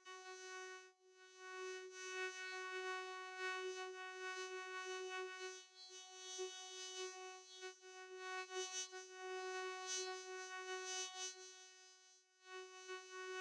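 Vocoder synth effect: one steady, buzzy electronic note with many overtones, held at a single pitch and breaking off briefly a few times.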